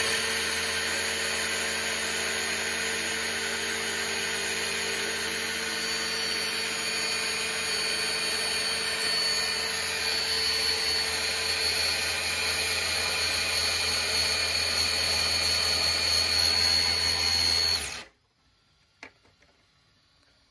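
Electric 1/10-scale RC car's brushless motor held at full throttle, spinning the front wheels in place in a smoky burnout: a steady, loud high whine with tyre noise that cuts off suddenly about 18 seconds in. A faint click follows about a second later.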